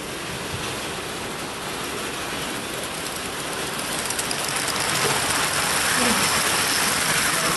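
Vintage 0 gauge tinplate live-steam model locomotive and its coaches running past, a rapid clatter of wheels on tinplate track with steam hiss, growing louder about halfway through as the train comes close.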